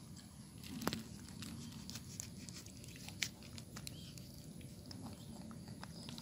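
Baby monkey chewing and smacking on grapefruit flesh: scattered soft clicks, with a sharper click about a second in and another near three seconds.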